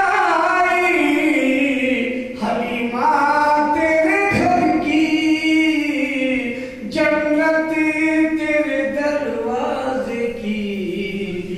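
A man reciting a naat, a devotional poem in praise of the Prophet Muhammad, sung unaccompanied. He draws out long held notes that glide up and down, pausing briefly for breath every few seconds.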